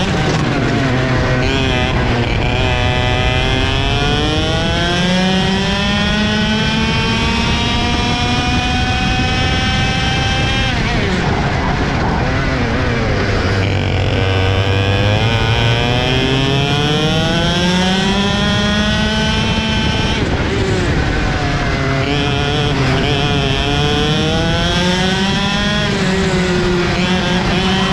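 Two-stroke racing kart engine heard from onboard. Its pitch climbs steadily for several seconds as it accelerates, falls away about ten seconds in and again about twenty seconds in, then climbs again.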